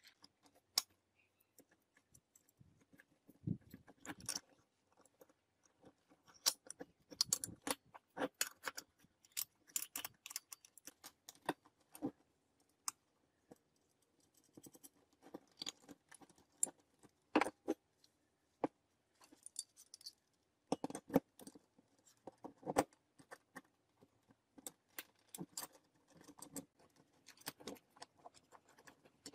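Steel bars, bolts and nuts clinking and knocking as they are handled and fitted together on a tabletop, in irregular clicks with short pauses between.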